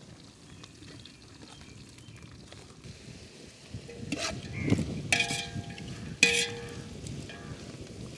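A metal ladle stirring onions in a large metal cooking pot, knocking against its side several times in the second half. The pot rings briefly after each knock, and the loudest knock comes a little after six seconds in.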